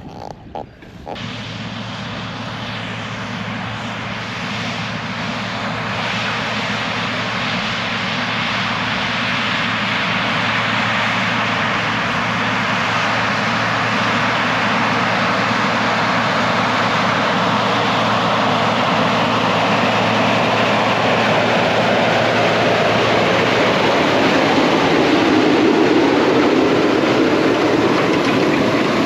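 A heavy vehicle engine running steadily, getting gradually louder over the stretch.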